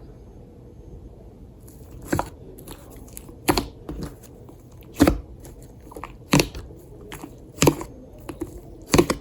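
Slime being squeezed and folded by hand, setting off sharp air-bubble pops. The pops begin about two seconds in and come about every second and a half, six in all, with soft crackling between them.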